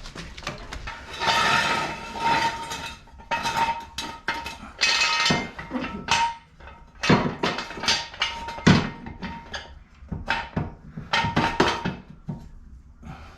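Irregular metal clanks, knocks and clinks from jack equipment being handled, a dozen or so sharp strikes spread unevenly over the stretch.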